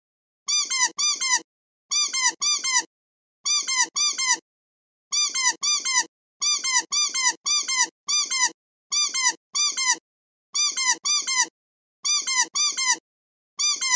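A squeaky toy squeezed over and over, giving short high squeaks mostly in quick pairs about every second and a half, each squeak a brief rise and fall in pitch.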